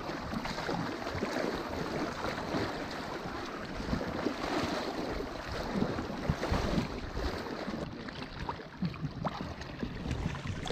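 Water sloshing and splashing as people wade through shallow floodwater, in an uneven run of soft strokes.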